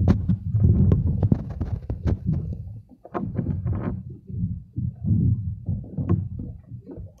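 Wind buffeting the microphone in uneven low rumbles, with water slapping and knocking against the wooden floating platform in scattered clicks and knocks. It is busiest in the first few seconds and eases a little after about three seconds.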